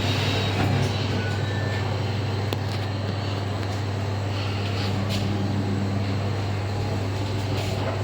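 Otis passenger lift car travelling upward, heard from inside the car: a steady low hum over an even rushing noise.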